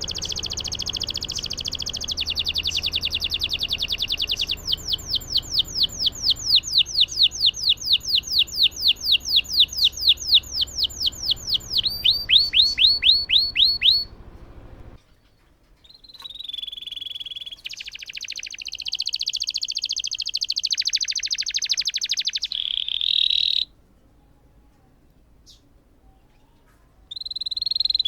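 Domestic canary singing a long rolling song: fast trills, then a long run of quick repeated sweeping notes. After a short break it sings another long roll, stops for about three seconds, and starts again near the end.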